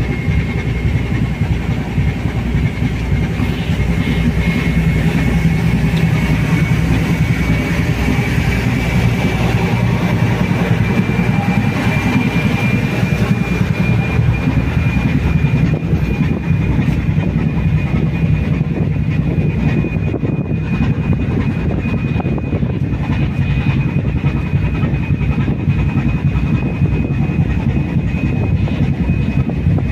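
A ship's engines and machinery running steadily while the vessel is under way, heard on deck as a constant low noise with a thin high whine that rises slightly in pitch about halfway through.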